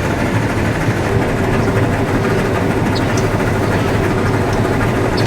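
Claas combine running, heard from inside the cab: a steady engine drone with a dense mechanical rush over it.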